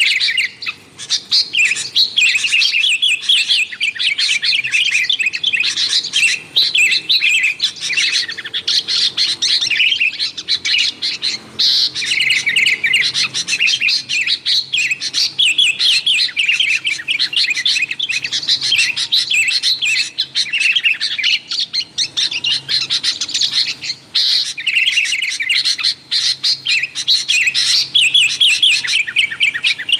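Sooty-headed bulbul (kutilang) in noisy, agitated chatter: rapid strings of chirps and warbles that run on almost without a break. This is the 'ribut' chatter played as a lure to draw in wild bulbuls.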